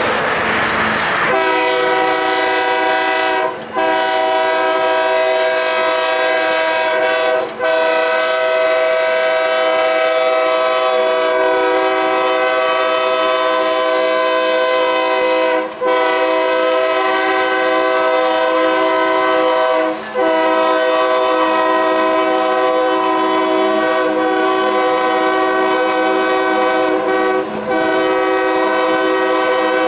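Diesel locomotive air horn sounding a long, steady multi-note chord, held almost without pause and broken only by five brief gaps. It comes in about a second in, after a rushing noise, as the freight train passes close by.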